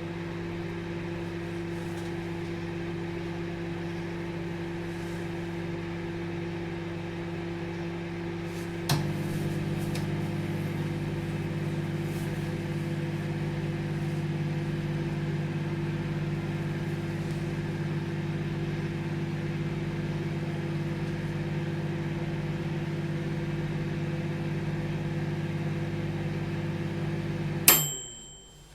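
Microwave oven running with a steady hum. About nine seconds in a click sounds and the hum shifts slightly. Near the end it stops abruptly with a sharp click and a brief high tone.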